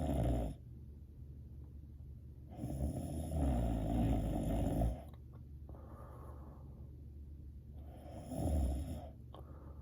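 A sleeping person snoring: a long snore from about two and a half seconds to five seconds in, a softer breath out about a second later, and a shorter snore near the end.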